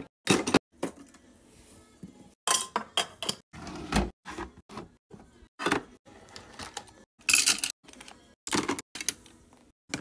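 Small hard objects being handled and set down on a hard surface: irregular clicks, taps and knocks, some single and some in quick clusters of a few.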